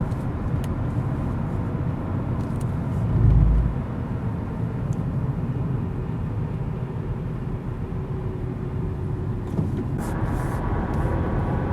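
Steady outdoor background rumble, heaviest in the low range, with a brief deep swell about three seconds in.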